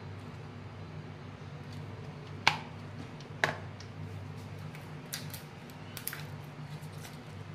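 A steel spoon knocking twice against a bowl, about a second apart, as mayonnaise is tapped off it onto grated vegetables, followed by a few lighter clicks. A steady low hum runs underneath.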